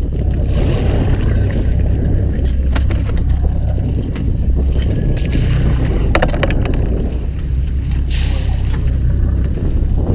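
Fishing boat's engine running with a steady low hum under the wash of the sea, with a few sharp knocks on board, a cluster of them about six seconds in.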